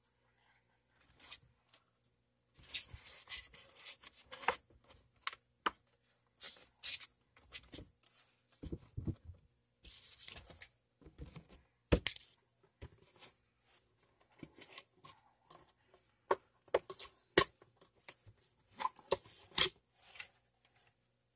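Irregular rustling and scraping of cardboard and plastic packaging as a toy remote-control car is packed back into its box, with scattered light clicks and knocks and one sharper knock about twelve seconds in.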